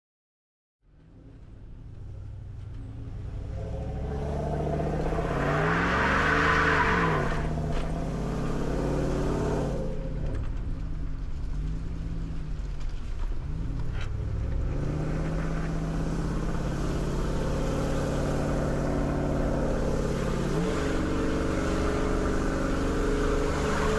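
A motor vehicle's engine running and revving, its pitch rising and falling again and again as it pulls along. It fades in after about a second of silence.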